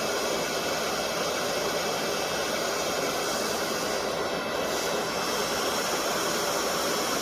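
Hot-air rework station blowing a steady rush of hot air to melt the solder and lift a surface-mount IC off a circuit board.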